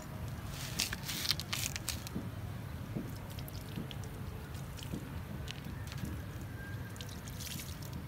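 A steady low rumble with scattered small crackles and clicks, which come thickest about a second in and again near the end.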